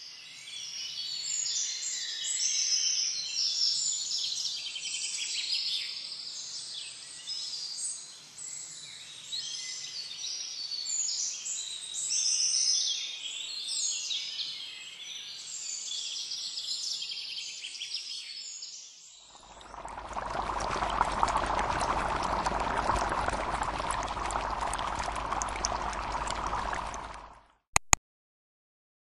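Birds chirping and twittering in many quick, overlapping calls for about nineteen seconds. Then a steady rushing, water-like noise runs for about eight seconds and cuts off suddenly, followed by two sharp clicks.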